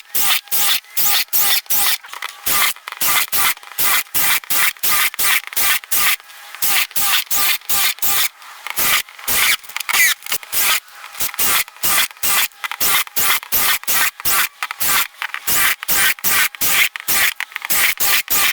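Holes being drilled through thin refrigerator sheet steel: rhythmic scraping strokes, about two or three a second.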